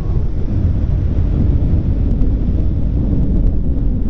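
Wind buffeting the microphone as a steady, loud low rumble, over the wash of surf breaking on the beach.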